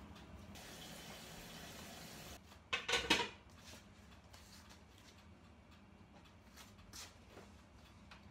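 Quiet kitchen room noise with a faint steady hiss for the first two seconds, and a short scuffing noise about three seconds in.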